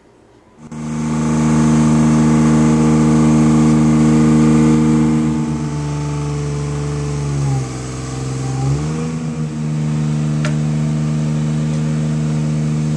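A tree crew's power equipment engine running steadily at high speed. About seven and a half seconds in it bogs down, then picks back up about a second later, as if taking a load.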